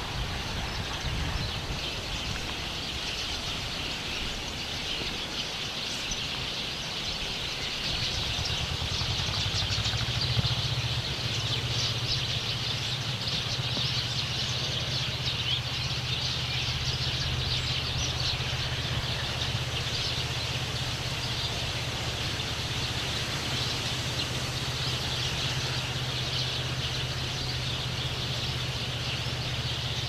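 A flock of small birds hidden in a tree, chirping in a dense, continuous chorus. Beneath it runs the low rumble of expressway traffic, which grows steadier about eight seconds in.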